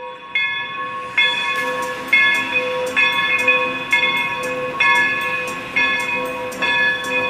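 Steam locomotive's bell ringing steadily, about one strike a second, each strike ringing on and fading before the next.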